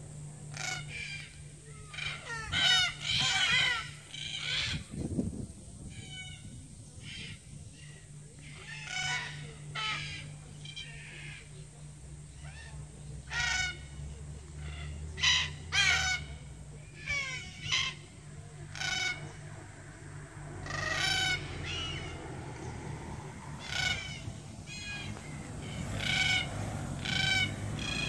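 A flock of black cockatoos calling: short, rough-edged calls every second or two, with a cluster of quick calls about three seconds in and another in the middle.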